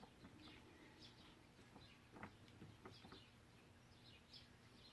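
Near silence, with faint high bird chirps scattered throughout and a few soft clicks.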